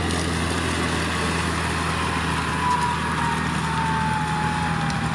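Engine of a harvest machine running steadily with a low hum, with a faint whine that slowly falls in pitch through the second half.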